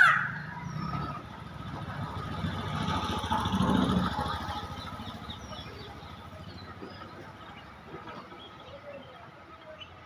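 A motor vehicle passing, its engine and road noise swelling to a peak about four seconds in and then fading away, with a few faint high bird chirps. The tail of a peacock's call dies away at the very start.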